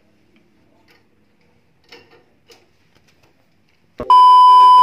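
A few faint, scattered clicks. Then, about four seconds in, a sudden loud steady test-pattern beep near 1 kHz with static hiss begins: the TV colour-bars test tone, used as an edit transition, lasting about a second.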